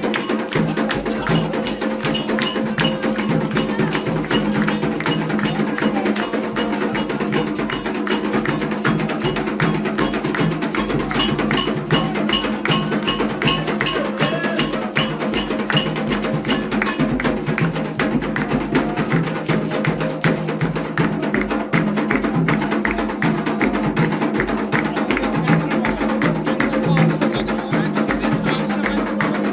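Candomblé ritual drumming: drums and sharp struck percussion playing a fast, steady rhythm without a break.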